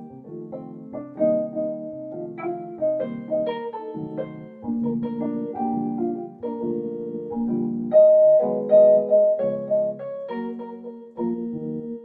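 Electronic piano keyboard played with both hands: a melody over held chords, growing louder with a repeated note about eight seconds in.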